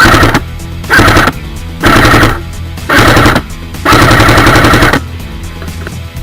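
Airsoft electric gun firing five full-auto bursts, the last and longest lasting about a second, each a rapid mechanical rattle, with background music underneath.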